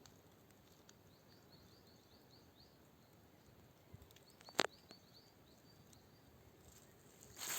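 A small bird singing a quick run of short, high repeated chirps, heard twice over a quiet forest background, with a single sharp crack a little past halfway.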